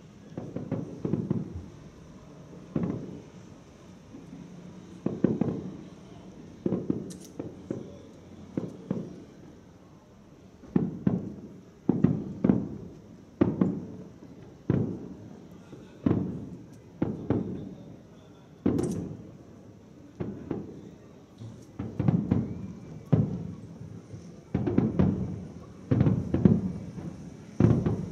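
Aerial firework shells bursting in a long run of deep booms, each trailing off in a rolling echo. They come about one a second, with gaps early on, and crowd closer together from about ten seconds in.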